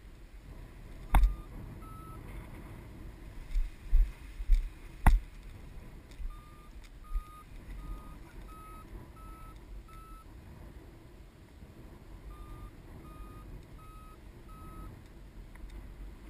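Paragliding variometer beeping its climb tone in runs of short high beeps, a little under a second apart, the pitch edging up within each run. Wind rumbles on the microphone, with a few sharp knocks about a second in and again between four and five seconds in.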